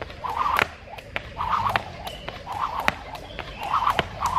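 Skipping rope slapping a concrete deck in sharp smacks at irregular intervals, about six of them, with short hissing bursts in between.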